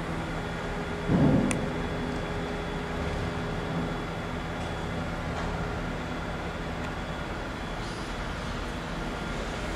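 Steady low mechanical hum over outdoor background noise, with a brief louder low thump about a second in.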